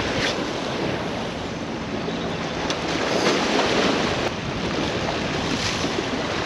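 Surf washing onto the beach, a steady noise with gentle swells, with wind buffeting the microphone.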